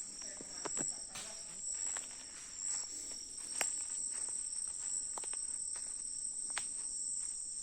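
Steady high-pitched insect chorus, two constant shrill tones, with scattered light clicks and snaps over it.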